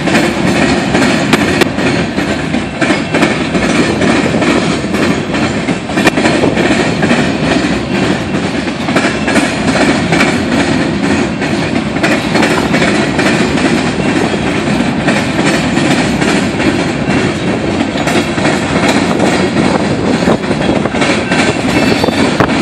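Freight train of ballast hopper cars rolling past: a loud, steady rumble of steel wheels on rail, with frequent irregular clacks as the wheels cross rail joints.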